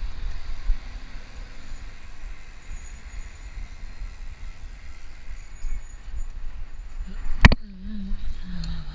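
Wind buffeting the mounted action camera's microphone on a moving pedal bike, a steady low rumble with road hiss. About seven and a half seconds in comes one sharp knock, the loudest sound.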